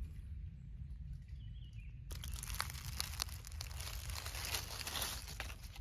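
Dry fallen leaves crackling and rustling as a hand reaches in among them to pick a mushroom, starting about two seconds in, over a steady low rumble.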